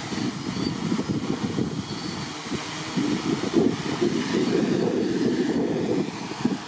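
Small quadcopter drone's electric motors and propellers running as it descends and sets down to land, louder from about halfway through as it comes down close, with gusty wind on the microphone.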